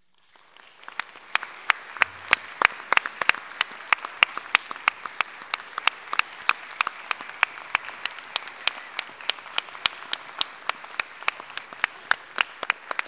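Audience applauding: the clapping swells in within the first second out of silence and holds steady, with one pair of hands close by clapping loud and sharp, about three times a second, above the rest.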